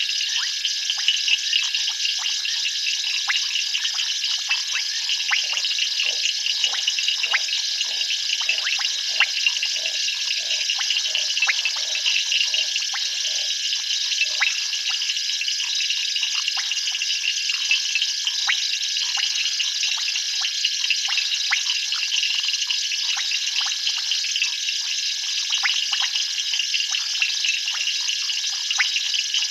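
Dense night chorus of calling frogs and insects: a steady high-pitched trilling made of many fast clicks. A scattering of lower ticks joins it between about six and thirteen seconds in.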